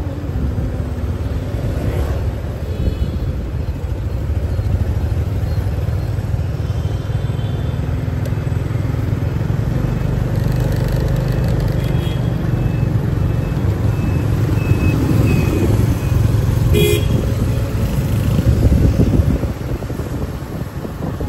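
City street traffic heard from a moving motorbike: a steady low rumble of engines and road noise, with short horn beeps sounding now and then.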